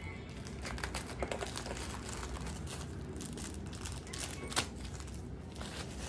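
Clear plastic bags crinkling as they are handled and packed, with scattered crackles and one sharp click a little after halfway.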